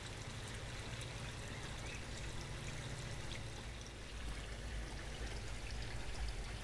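Steady, low-level bubbling and pouring of water: an air line mixes potassium permanganate solution in a bucket, which is then emptied into a koi pond.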